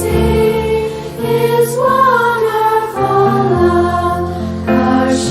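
A Christian children's sing-along song: singing voices, choir-like, with a sustained instrumental accompaniment.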